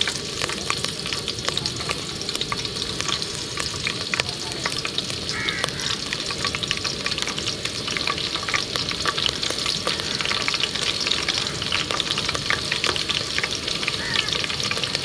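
Green chillies frying in hot oil in a pot for a tempering: a steady sizzle full of crackling pops.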